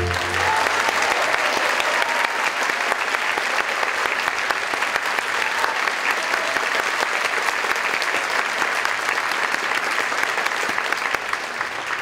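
Theatre audience applauding: dense, steady clapping.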